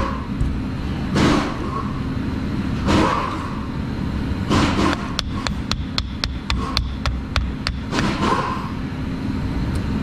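A 10 mm wrench being worked on a small-engine carburetor's float-bowl bolt to loosen it: several knocks a second or two apart, and in the middle a quick even run of about a dozen sharp clicks, about five a second.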